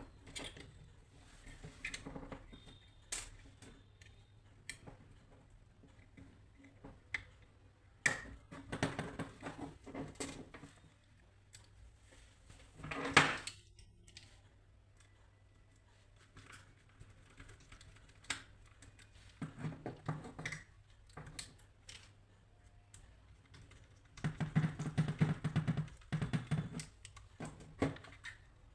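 Hands handling small parts: scattered light clicks and taps with bouts of rustling, loudest briefly near the middle and in a busier stretch near the end.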